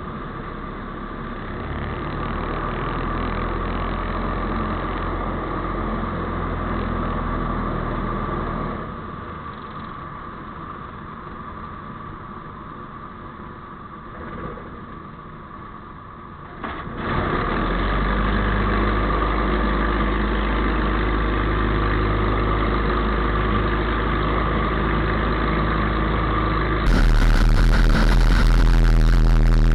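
Ultralight aircraft's propeller engine running on a dirt-strip touch-and-go. It is throttled back about nine seconds in during the ground roll, then opened up about seventeen seconds in for the takeoff run, and it stays steady and louder from then on.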